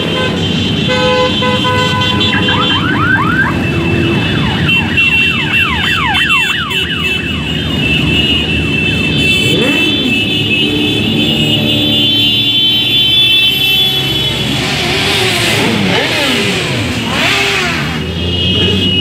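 A procession of motorcycles riding past, engines running and revving, several dropping in pitch as they go by. A steady high-pitched tone sounds over them.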